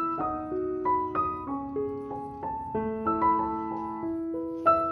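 Background piano music: a gentle melody of single notes struck one after another, each ringing and fading over sustained lower notes.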